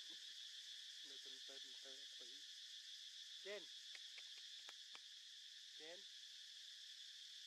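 Faint, steady, high-pitched drone of an insect chorus in tree canopy. A few short, faint pitched calls break through: a quick string about a second in, one in the middle and one near the end.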